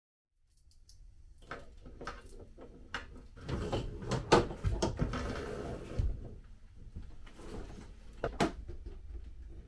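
Knocks, clicks and clatters of a pull-down kitchen faucet being handled and fitted into a stainless steel sink, busiest from about three to six seconds in, with one more sharp knock near the end.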